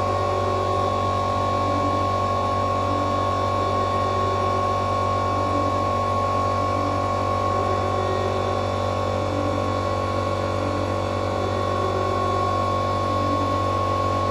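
A steady machine hum with a constant high whine over it, holding one pitch with no rise and fall.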